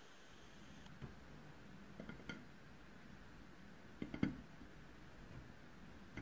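Soft taps and light clicks as baked financiers are set down one by one on a ceramic plate, a few small knocks spaced a second or two apart.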